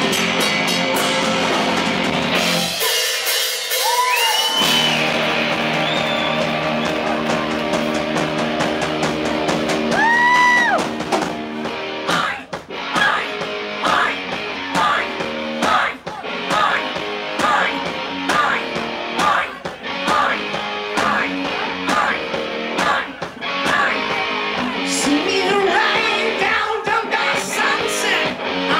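Live hard-rock band heard from on stage through the amps and monitors: distorted electric guitar, bass and drums with a male singer singing and yelling. The bass and drums drop out for a moment about three seconds in, and from about twelve seconds the band plays short, evenly repeated hits.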